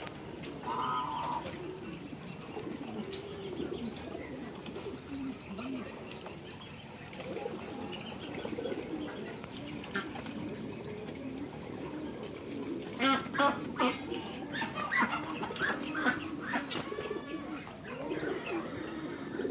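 A flock of Muscovy ducks makes a murmur of soft, low calls. Over it a high chirp repeats about twice a second through the first half. A few sharper, louder sounds come about two-thirds of the way through.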